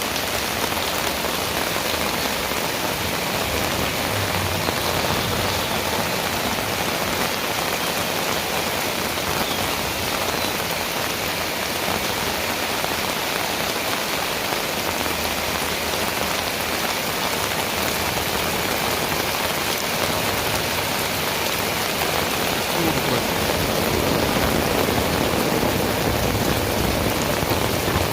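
Heavy rain falling steadily, a dense even hiss of rain on surfaces. In the last few seconds a low rumble of thunder builds up.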